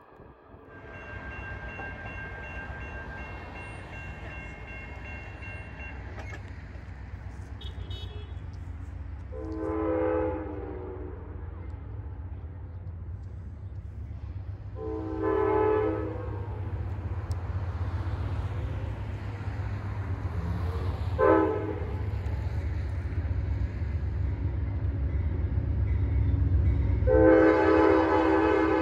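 Amtrak diesel locomotive horn sounding the grade-crossing pattern as the train approaches: two long blasts, a short one, then a final long one, over a low rumble that grows as the train nears. Crossing-signal bells ring during the first few seconds.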